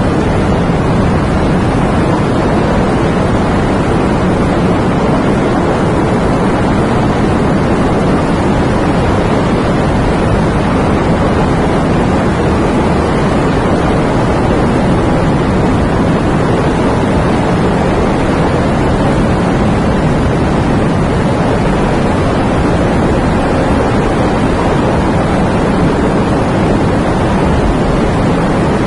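Steady rain: a loud, dense, even hiss that does not change, with no single drops standing out.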